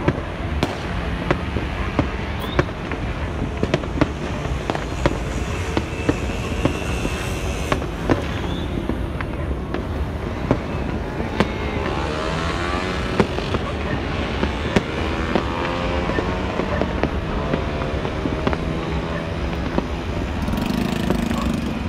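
Many fireworks and firecrackers going off across the city, sharp bangs in quick, irregular succession over a constant crackling background. Midway, a whine rises and falls in pitch beneath the bangs.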